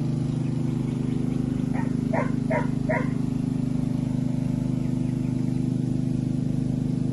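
A dog barks four quick times, a little under two seconds in, over a steady low hum that runs throughout.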